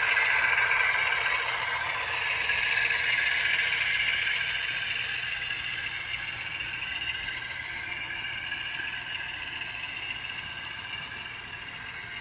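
HO scale model freight train running past: a steady mechanical whir with rapid rattly clicking of the cars rolling along the track, growing fainter after the first few seconds as the locomotives draw away.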